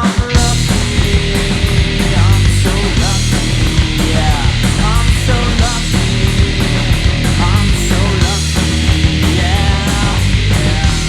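Live rock trio of electric guitar, bass guitar and drums playing loud and steady with regular drum hits.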